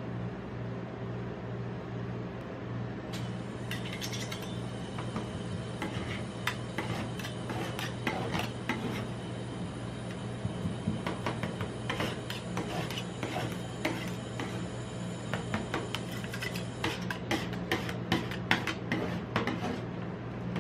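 Two metal spatulas chopping and scraping on the steel cold plate of a rolled ice cream machine, working an orange-drink cream base as it freezes. Quick clicks and scrapes start a few seconds in and grow denser near the end, over a steady low hum.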